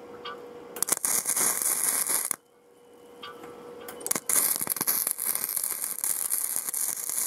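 Electric arc welding of a cable-anchor hook onto an electric winch: two runs of crackling, sizzling arc, the first about a second and a half long, the second starting about four seconds in and running on, over a steady faint hum.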